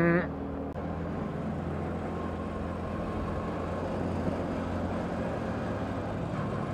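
Scooter riding at a steady cruise: a low engine hum under even road and riding noise. A held pitched sound cuts off just as it begins.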